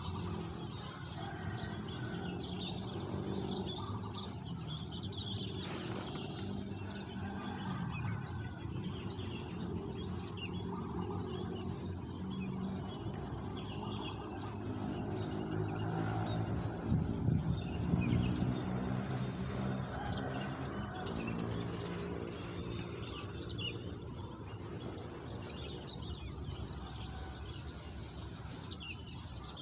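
Wild birds chirping and calling over a steady outdoor background, with a thin high-pitched whine that drops out about a third of the way through and comes back later. A low rumble sits underneath and swells louder about halfway through.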